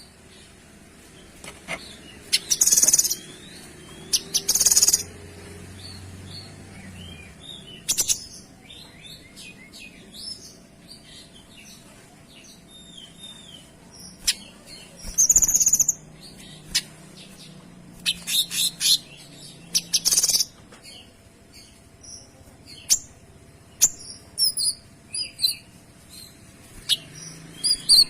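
Kinoy songbird singing persistently, with loud, rapid, very high-pitched bursts of notes, the clear, dense 'shots' prized in a tutor song. Shorter, quieter chirps and whistles fill the gaps between them.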